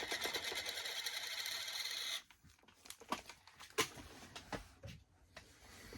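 Plastic toy packaging being torn open, a rapid stuttering rip lasting about two seconds that stops abruptly, followed by scattered small clicks and rustles of the wrapper and figure being handled.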